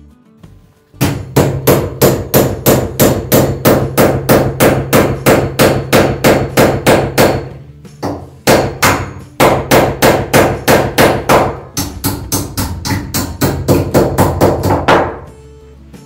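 Hammer driving a nail into a wooden roof beam overhead, fast repeated blows at about three a second. The blows come in three runs with short pauses about halfway and three-quarters of the way through.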